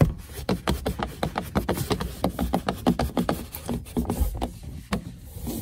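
Microfiber pad of a hand-held windshield cleaning tool rubbing back and forth across the inside of a car window, in quick scuffing strokes several times a second.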